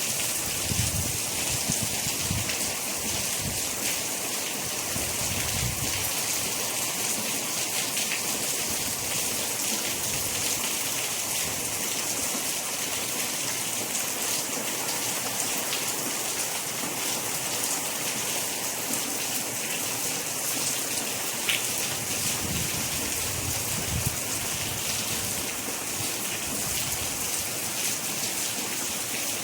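Steady heavy rain hissing, with faint low rumbles in the first few seconds and a few louder drops standing out.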